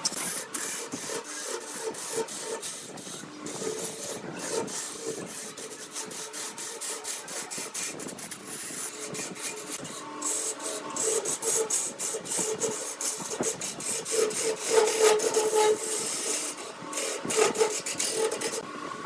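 Wood being turned on a lathe: a turning tool scraping and cutting against the spinning workpiece in a rapid, irregular rasping, louder around three quarters of the way through.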